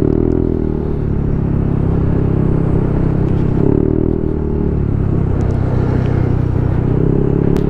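Motorcycle engine running steadily under way, its pitch dipping and rising slightly a few times, over a steady rushing noise.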